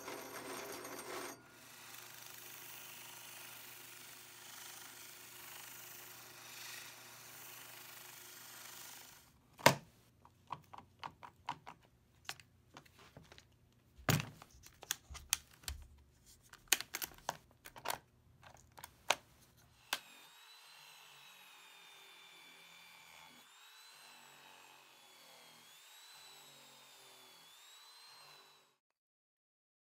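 Power tools working an old steel axe head. First a rotary tool's sanding drum grinds briefly, then comes a run of sharp clicks and knocks as a power tool is handled. Last, a Porter-Cable paint and rust remover runs against the steel with a whine whose pitch swoops up and down as it is pressed on, and the sound stops shortly before the end.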